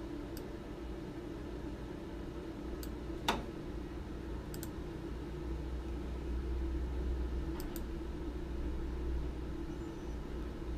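Computer mouse clicks, about half a dozen and some in quick pairs, the loudest a little over three seconds in, over a steady low hum of equipment fans.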